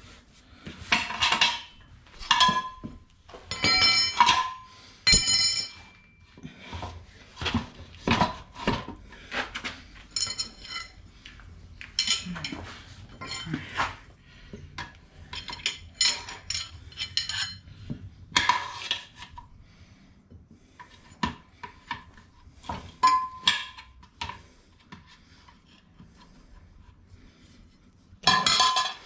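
Metal tyre levers and rim protectors clinking and knocking against each other and the motorcycle wheel rim as they are set in place to lever a tyre on by hand. The clinks come at irregular intervals, and several in the first few seconds ring briefly.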